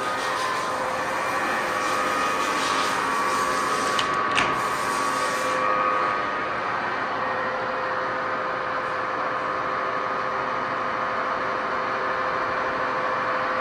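Steady hum of running machinery holding a few constant whining tones, with a light click about four seconds in. The higher hiss over it drops away about six seconds in.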